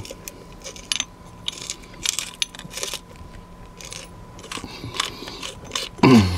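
Hand pepper grinder being twisted, grinding black peppercorns with irregular small crunching clicks. Near the end a short, louder sound falls steeply in pitch.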